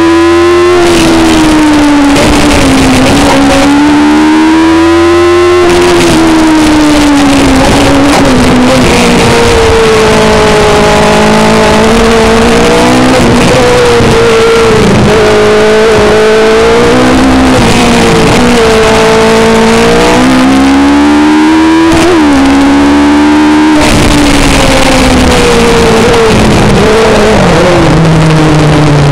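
Hill climb racing car's engine recorded onboard, revving hard, its pitch climbing and then dropping sharply at gear changes; the sound is loud and distorted.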